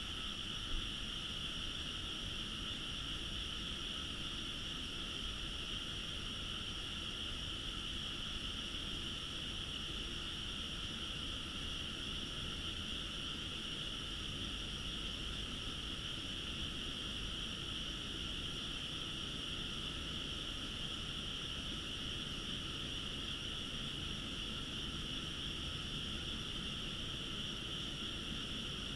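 Chorus of frogs in nearby rice paddies at night, a steady unbroken high-pitched calling that never swells or fades.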